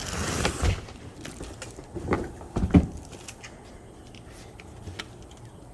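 Rustling of packaging for under a second, then a few knocks and taps of a hard guitar case being handled out of its shipping box, the loudest a little under three seconds in.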